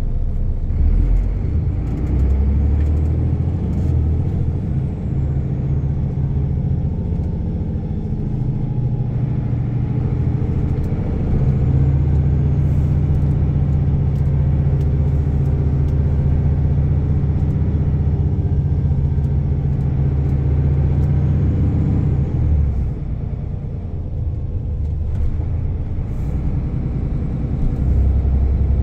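VDL Bova Futura coach's diesel engine heard from inside the passenger cabin, a low steady drone over road noise. The engine note holds strong under power, eases off about two-thirds of the way through and picks up again near the end.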